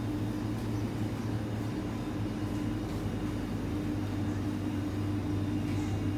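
Steady low machine hum with a constant droning tone and no breaks.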